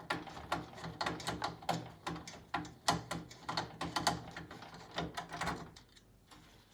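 Irregular clicks and knocks of plastic and metal computer parts being handled as an Intel CPU cooler is taken off the processor, stopping about a second before the end.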